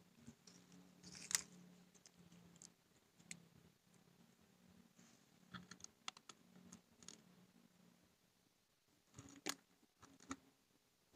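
Faint scattered clicks and crackles, the loudest about a second in and again near the end, from a knife prying at the propolis-sealed wooden box of a stingless bee hive.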